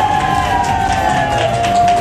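Background music: one long held note sliding slowly down in pitch.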